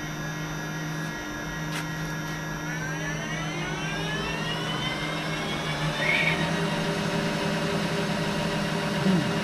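Variable-speed metal lathe running, its spindle and gearbox whining. The whine rises in pitch for a couple of seconds as the spindle speeds up, then holds steady.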